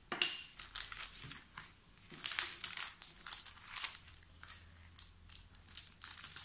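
Clear plastic packaging crinkling as packets of scrapbooking embellishments are handled and shifted, in a run of short rustles that are busiest in the middle.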